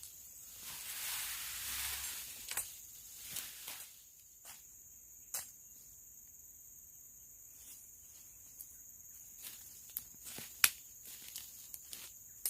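Insects keep up a steady high-pitched drone, over rustling in the undergrowth near the start and a few sharp snaps or knocks, the loudest about ten and a half seconds in.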